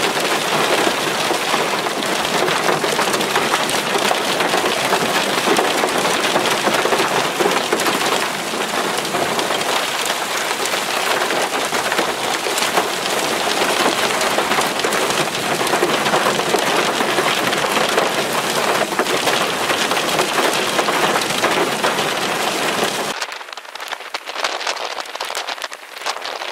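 Hailstones and rain pelting down, a loud, dense hiss of countless small hits. It drops away abruptly about 23 seconds in to a quieter hiss.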